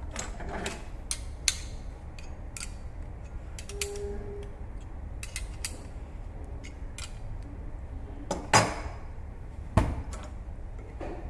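Copper-pipe flaring tool being handled and clamped by hand: scattered metal clicks and clinks from the flaring bar, its wing nuts and yoke, a short squeak about four seconds in, and two louder knocks near the end, over a steady low hum.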